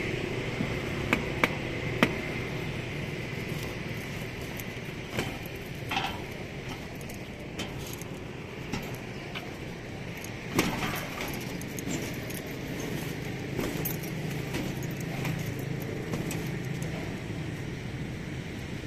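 Steady hum of surrounding road traffic, with a few sharp metallic clinks and knocks scattered through, three in quick succession in the first two seconds and a louder one about ten and a half seconds in.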